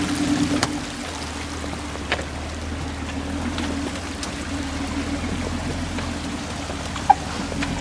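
Off-road 4x4's engine running steadily at a slow crawl, with a steady wash of water and slush under the tyres; the engine gets quieter about a second in, and a sharp click comes near the end.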